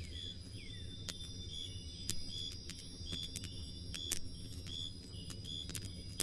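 Crickets chirping in short, evenly repeated high chirps about twice a second, with a campfire crackling and popping in sharp scattered snaps.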